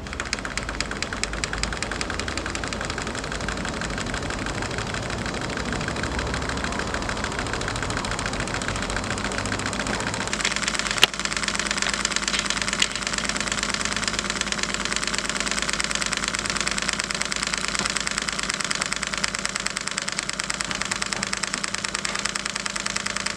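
A small 3D-printed alpha Stirling engine with syringe pistons running fast, its crank linkage and flywheel making a rapid, even clicking rhythm. A single sharper click sounds about eleven seconds in.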